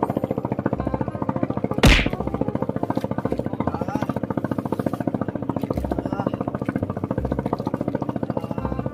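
Background music with a fast, even pulse, and one sharp whack about two seconds in.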